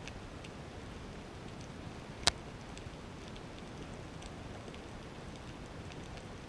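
Underwater ambience through a camera's housing: a steady hiss dotted with faint scattered clicks, and one sharp, loud click a little over two seconds in.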